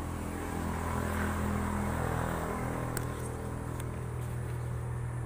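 A steady low engine hum, with a sharp click about three seconds in.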